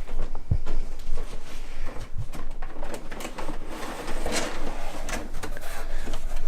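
A cardboard box being opened and its contents handled: cardboard and packing rustling, with scattered clicks and a few light knocks.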